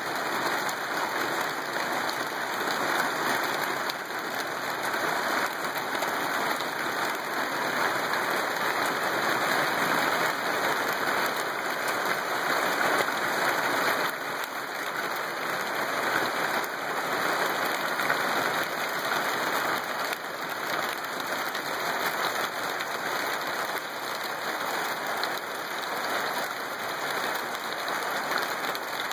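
Steady rain falling in a thunderstorm: an even, continuous hiss of drops.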